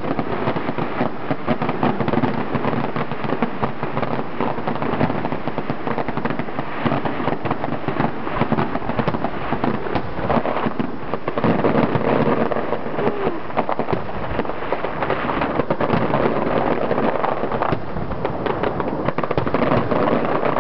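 Aerial fireworks display: shell bursts and crackle in a dense, continuous barrage of overlapping bangs with no pause.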